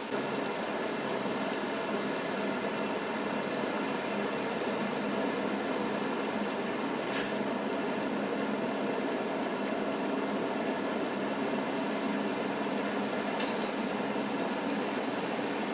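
Floodwater from a burst water pipe rushing and churning along a sidewalk and street: a steady, even rush of water.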